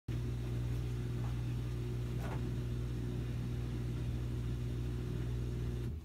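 A steady low electrical hum that cuts off abruptly just before the end.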